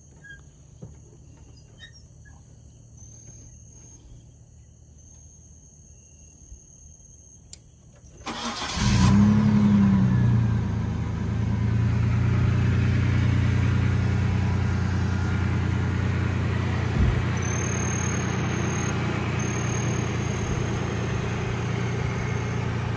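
A Mitsubishi Montero's engine starts about eight seconds in, flares up briefly, then drops to a steady idle.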